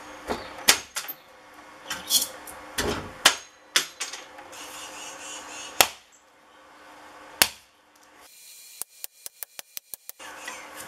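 Hand tools working a scrap transformer: sharp metal clicks and scraping as its core is pried apart, then two single hammer blows on its steel frame about a second and a half apart. Near the end comes a quick run of about ten even ticks.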